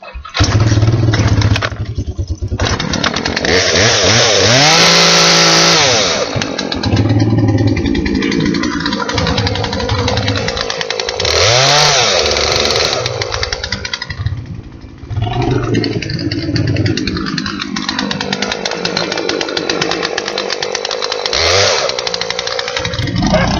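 Two-stroke chainsaw running and revved up hard several times, easing back to a lower speed between the runs, as it is used to cut up a potato.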